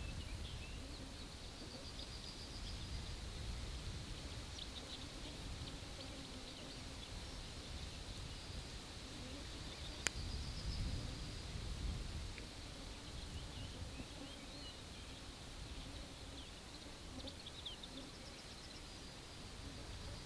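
Summer forest ambience: several small birds chirping and trilling faintly, their calls scattered throughout over a steady low rumble. A single sharp click about halfway through.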